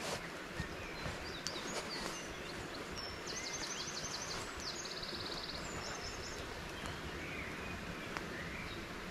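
Woodland birdsong, a run of about seven quick repeated notes followed by a fast trill, over the steady hiss of a stream. In the first two seconds, a few sharp creaks and rustles from a lashed wooden-pole camp bed with a fabric bed as a man settles onto it.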